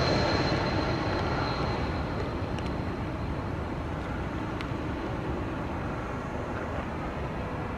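Jet engine noise of a Swiss Airbus A220-100 passing low and moving away, its Pratt & Whitney PW1500G geared turbofans making a steady rumble that is loudest at first and fades gradually. A thin high whine sounds over the rumble at first and dies away.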